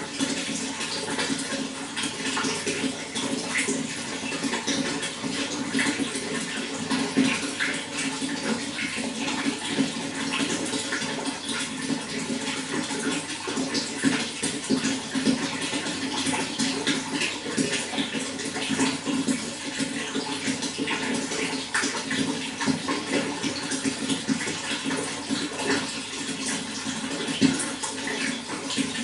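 Running water flowing and splashing steadily, thick with many small splashes and a low gurgle.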